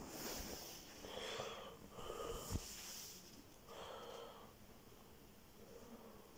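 A person breathing close to the microphone: three short, soft breaths a second or two apart, faint over a light hiss.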